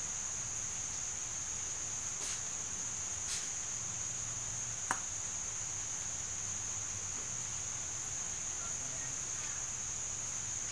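A steady high-pitched whine, with a few faint clicks about two, three and five seconds in.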